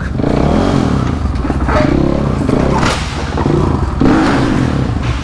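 Supermoto motorcycle engine running and revved in a few short blips while the bike is stuck, with a thump and some clatter.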